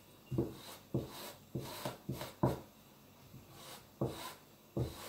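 Tailor's chalk scraping across fabric on a table in about seven short strokes, with a pause in the middle, as a neckline curve is drawn.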